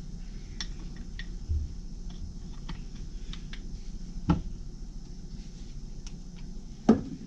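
Small metallic clicks and taps of a piston, wrist pin and connecting rod being handled and fitted together, with a dull thump about a second and a half in and two sharper knocks at about four and seven seconds, the last the loudest. A low steady hum runs underneath.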